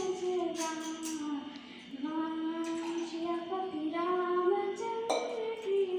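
A woman singing a slow melody unaccompanied, holding long notes that slide up and down in pitch, with a short break about a second and a half in. A brief click sounds about five seconds in.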